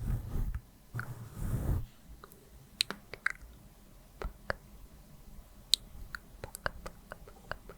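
Close-up brushing on the microphone for about two seconds, a soft rustling with a low rumble, then it stops and scattered sharp little clicks follow.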